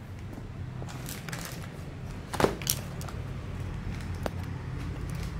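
Spectacle frames being handled over a glass counter: light clicks and taps, two sharp ones close together about halfway through and a fainter one later, over a steady low hum.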